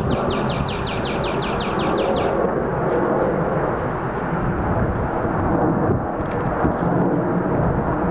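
Twin-engine jet airliner passing overhead, its engines a steady low rumble. A bird's fast trill of repeated falling notes, about six a second, stops about two seconds in, and a few short chirps follow.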